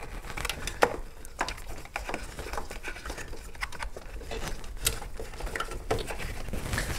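Hands handling a headlight wiring plug and harness inside the headlight bucket: a run of irregular small plastic clicks, taps and rustles.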